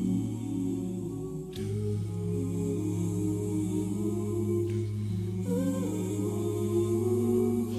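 Background music: long held notes over a steady low drone, with a short wavering melodic line about two thirds of the way through.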